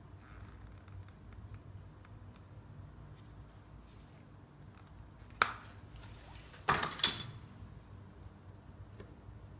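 A low steady hum, broken by three sharp plastic-and-metal clacks: one a little past five seconds in, then two close together about a second and a half later. These come from a caulking gun being worked and put down while a rubber cast-iron-to-plastic transition cuff is sealed with silicone and handled.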